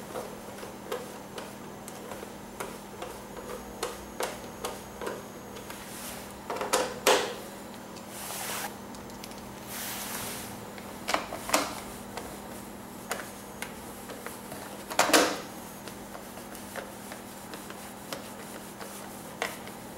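Irregular small clicks and taps of a screwdriver and screws being worked into the plastic tank side panels, with a few louder knocks of handling the panel (the loudest about fifteen seconds in) and a couple of brief rustles.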